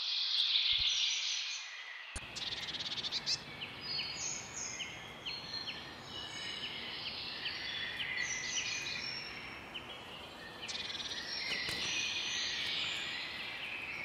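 Several small birds chirping and twittering, with many short high calls overlapping and a fast buzzy trill about two seconds in, over a steady background hiss.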